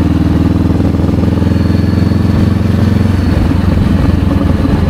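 Motorcycle engine running steadily while riding, a continuous even drone.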